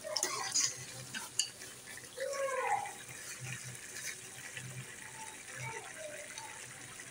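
Metal spoon stirring and scraping in a metal pot of spinach and chicken curry for the first second or so, then the thick curry bubbling as it simmers down. A brief wavering tone sounds in the background about two seconds in.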